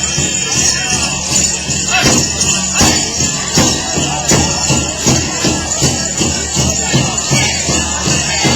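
Powwow drum group beating a big drum in a steady beat and singing, with the metal jingles of dancers' regalia shaking along.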